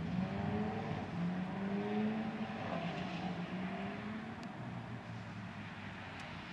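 A car engine passing, its pitch gliding slightly upward over a steady background hiss, fading toward the end, with two faint clicks.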